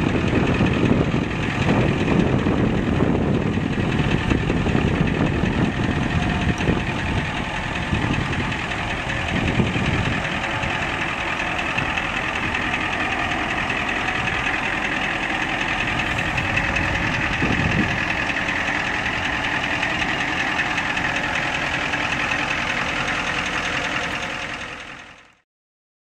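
The 1993 Ford F-350 pickup's engine idling steadily, fading out shortly before the end.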